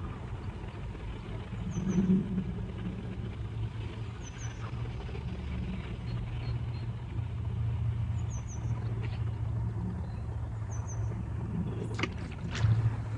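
Steady low hum of a motor vehicle's engine or road traffic. A faint short high double chirp repeats every couple of seconds, and there are a few clicks near the end.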